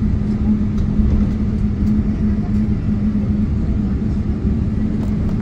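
Cabin noise of a Boeing 777 taxiing: the engines' steady low rumble with a constant hum.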